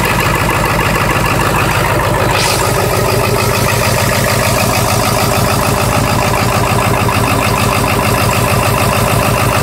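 7.3-litre V8 diesel engine idling steadily with an even, rhythmic clatter, running after a hard start.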